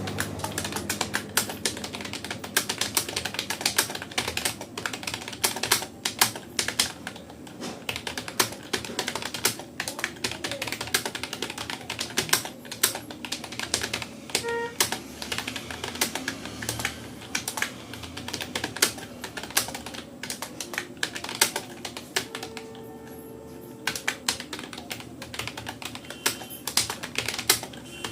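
Fast, continuous touch-typing on a Rapoo computer keyboard: a rapid, uneven clatter of keystrokes with one brief pause about three-quarters of the way through.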